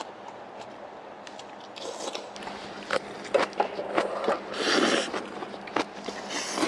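People eating soup at a table: scattered clicks and scrapes of spoons and chopsticks against bowls, and chewing. There is a louder noisy stretch about five seconds in.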